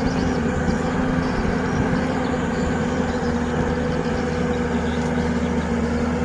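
Heavy machinery engine running steadily at an even speed, a constant low drone with no revving.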